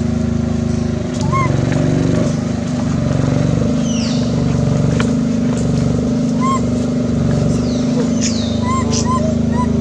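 An engine running steadily, a low droning hum, with short high chirps over it and two quick falling whistles about four and eight seconds in.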